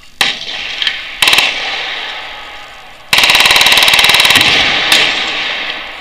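Machine guns firing full-auto: a couple of single shots and a short burst, then a long rapid burst of nearly two seconds. Each one trails off in a long echo across the range.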